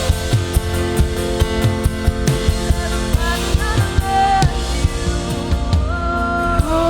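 Live worship band playing: a drum kit beat with kick and snare under held chords and a few melodic lines; the drums drop out at the very end.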